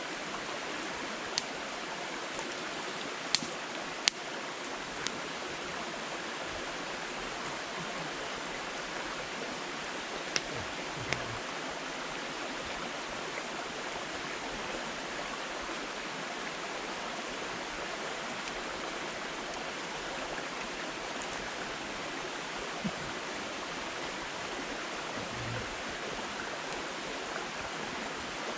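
Firewood burning in a campfire: scattered sharp crackling pops, a few seconds apart and sparser later on, the loudest about three and four seconds in, over a steady rushing noise.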